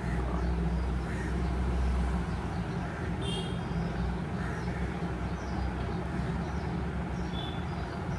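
Steady low background rumble, with a couple of short faint high chirps about three seconds in and again near the end.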